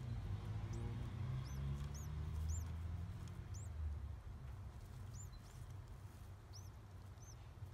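Newly hatched pigeon squab peeping: about ten thin, high, squeaky chirps at irregular intervals, the begging calls of a chick wanting to be fed. A low rumbling underneath fades out about halfway through.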